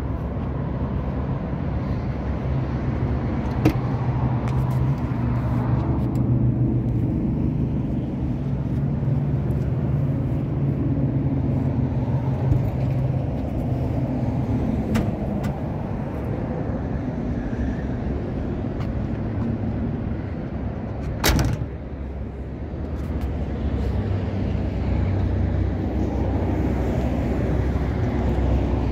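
Chevrolet El Camino engine idling steadily, with a single loud thump about three quarters of the way through as the car's door is shut.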